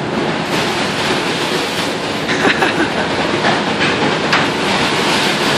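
Steady, loud noisy rumble of a fishing boat under way in rough seas, with scattered sharp rattles and clanks from the vessel.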